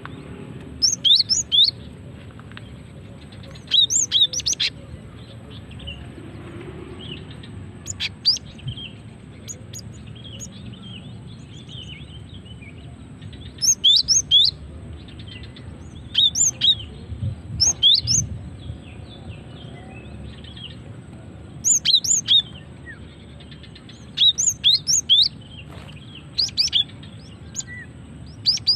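Female cinereous tit calling: short clusters of sharp, high, quickly falling chirps, repeated in bursts every few seconds over a low steady background hiss.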